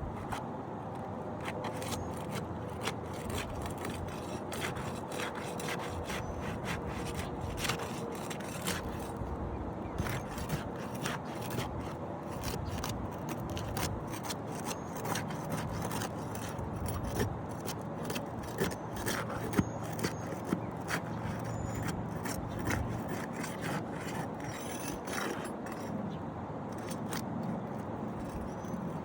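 Scraping and rubbing with frequent sharp clicks and taps as a roof shingle is worked loose for removal.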